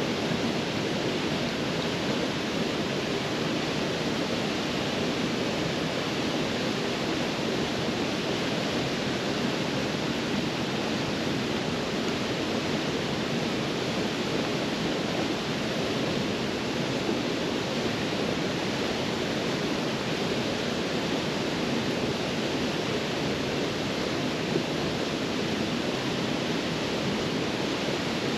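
Waterfall on a creek rushing steadily: an even, unbroken wash of falling water.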